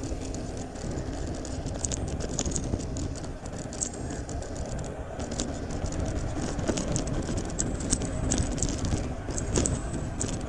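Bicycle riding along a concrete road: steady wind noise on the microphone and tyre rumble, with frequent small irregular clicks and rattles from the bike.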